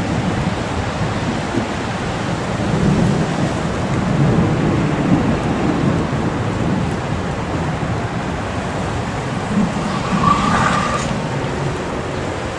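Low, swelling rumble with wind noise on the microphone as a monsoon thunderstorm builds before the rain. A brief higher-pitched sound rises over it about ten seconds in.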